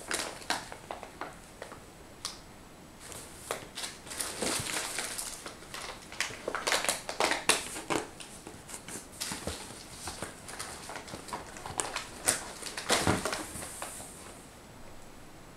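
A cardboard box and the cat-food packets inside it rustling and crinkling in irregular bursts with scattered clicks and crackles, as a cat rummages with its head in the box. The loudest bursts come about halfway through and again near the end.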